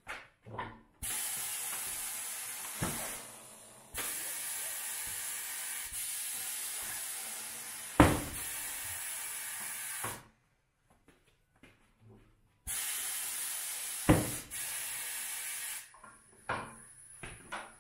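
Compressed air hissing from a tyre changer's pneumatic bead breaker in three long spells as it presses the tyre's bead off the wheel rim, with two loud thumps partway through.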